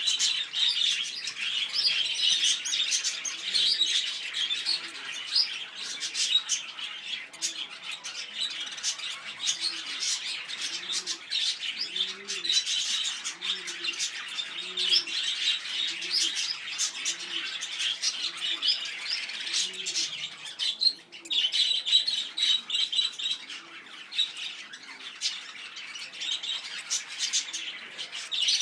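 Lovebirds chattering and squawking continuously in shrill, overlapping calls. A fainter low call repeats about once a second through the middle stretch.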